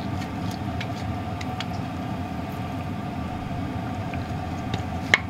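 Steady low mechanical hum, like a running fan or motor, with a few faint clicks and one sharp click near the end.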